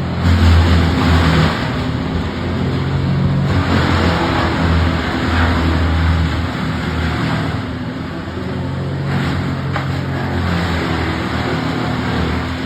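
A large machine engine running steadily, with surges of louder rough noise about a second in and again from about three and a half to seven and a half seconds in.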